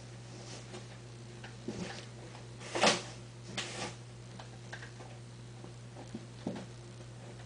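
Faint room noise: a steady low hum with a few brief scuffs and rustles. The loudest is a short burst of noise about three seconds in, followed by a smaller one.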